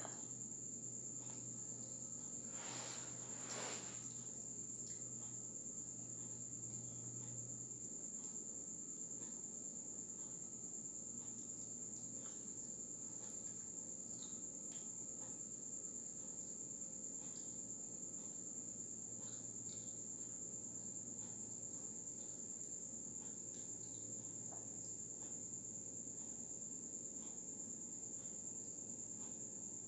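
A faint, steady high-pitched trill with a low hum beneath it, and a couple of soft eating sounds about three seconds in.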